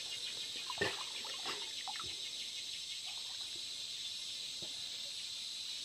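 Steady, high chirring of forest insects, with one sharp knock about a second in and a few short faint chirps after it.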